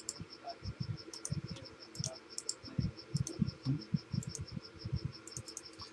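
A cricket chirping steadily, a high short pulse about six times a second, with scattered clicks and soft low thumps.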